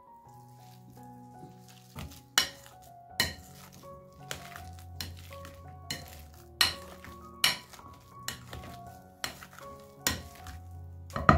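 Metal potato masher pressed through boiled potatoes and carrots in a glass bowl: about ten sharp knocks and clinks, roughly one a second, as the masher hits the bowl bottom, with a quick run of strikes at the very end. Soft background music runs underneath.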